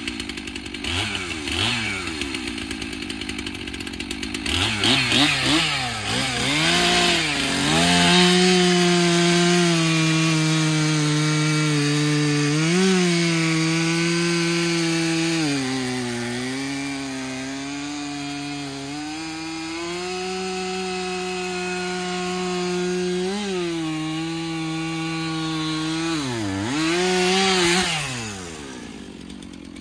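Two-stroke Stihl chainsaw revved in a few short blips, then cutting through a log at full throttle for about twenty seconds, its pitch sagging and recovering as the chain bogs in the wood. Near the end the cut goes through and the engine drops back.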